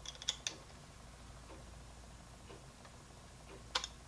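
Small sharp plastic clicks and ticks from a precision screwdriver working a trimmer pot on the back of a handheld Cen-tech multimeter: a short cluster of clicks at the start and another just before the end, with faint ticks between.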